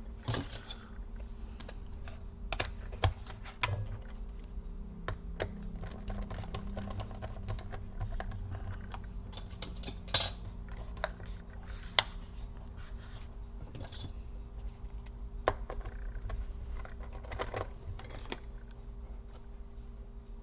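Irregular light clicks and taps of plastic and small metal laptop parts being handled and pressed into place during reassembly, with a few sharper clicks about 3, 10 and 12 seconds in.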